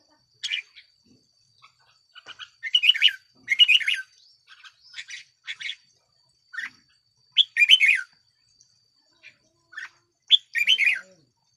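Red-whiskered bulbul singing: short bursts of chattering, warbling phrases, one after another with brief pauses between.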